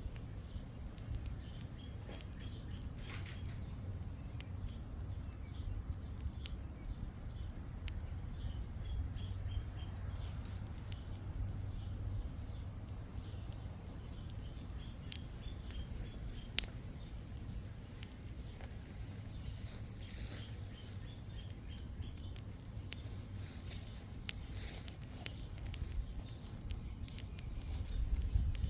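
Small campfire, started with charcoal, crackling with scattered sharp pops over a steady low rumble; faint short chirps come and go.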